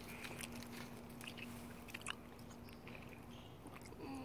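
Faint handling noises: a few scattered small clicks and rustles over a steady low hum that stops shortly before the end.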